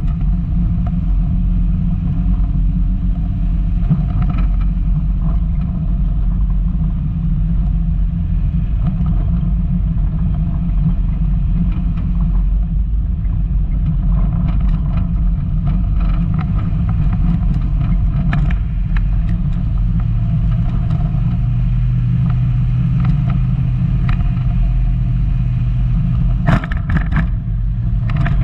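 Volkswagen Golf Mk2 driving off-road, its engine and drivetrain giving a steady low rumble, with a short cluster of sharp knocks and clatter near the end.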